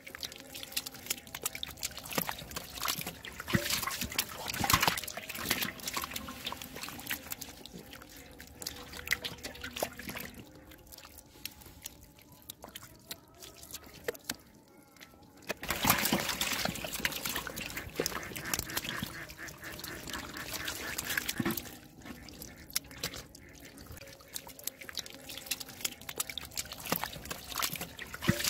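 Catfish flopping and slithering on wet mud, making irregular wet slaps and squelches that come in busy spells with a quieter stretch near the middle.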